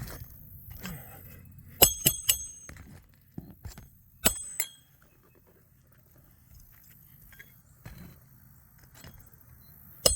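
Roofer's hatchet striking roofing nails into an asphalt shingle, each blow ringing metallically: three quick strikes about two seconds in, then a single strike a couple of seconds later.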